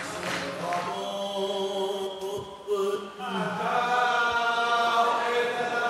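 A congregation singing a Hebrew melody together, many voices holding long notes that step from one pitch to the next.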